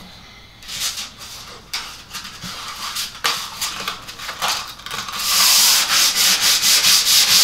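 Sandpaper rubbed by hand in quick back-and-forth strokes over the painted top of a particleboard IKEA Billy bookcase, scuff-sanding the old finish rough before repainting. The strokes get louder and faster about five seconds in.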